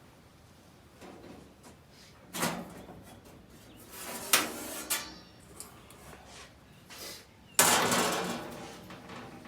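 Pieces of steel being handled and set down, giving three sharp metallic clanks, the last the loudest with a ringing that fades over about a second and a half, among lighter knocks.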